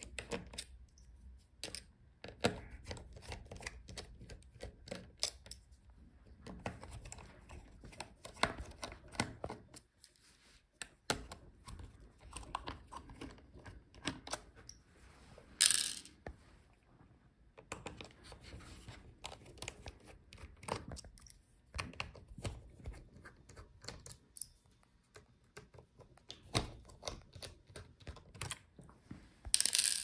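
Small clicks, taps and rattles of a precision screwdriver and small screws being worked out of a laptop's metal hinge brackets, with the plastic chassis being handled. There is a louder short clatter about halfway through.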